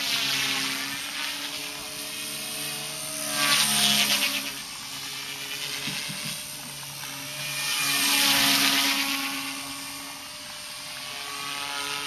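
Align T-Rex 250 electric RC micro helicopter in flight: a steady high motor and rotor whine with a whirring blade sound. It swells louder twice, about four seconds in and again about eight and a half seconds in, then eases back.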